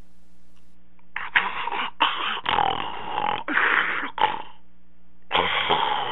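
A person snoring loudly in harsh, rasping snorts. A run of short bursts comes about a second in, then a pause, then a longer snore near the end.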